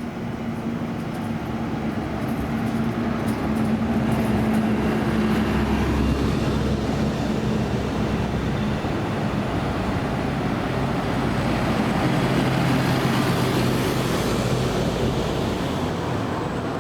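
Large bus's diesel engine running close by, its sound building over the first few seconds, with a rising hiss of road and tyre noise near the end.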